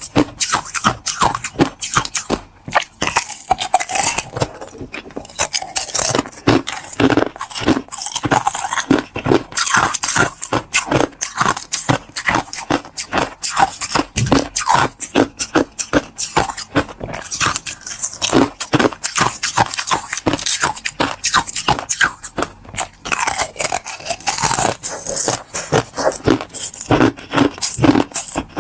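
Close-miked crunching and chewing of crystal ice: a dense, irregular run of cracks and crunches, bite after bite.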